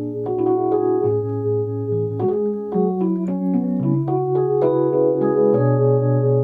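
Rhodes electric piano played with both hands: sustained chords over a moving bass line, the chords changing every second or so.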